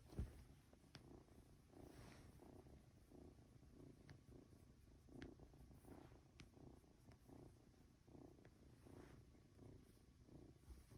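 Norwegian Forest Cat kitten purring softly, in a slow, even rhythm of pulses, with a few faint ticks.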